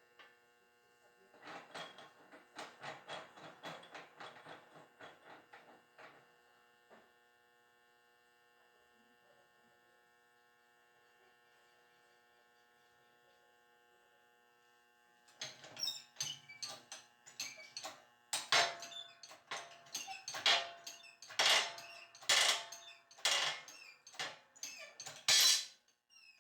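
Rapid rattling and clicking for a few seconds, then a longer run of louder, irregular knocks and clatter, over a steady electrical hum.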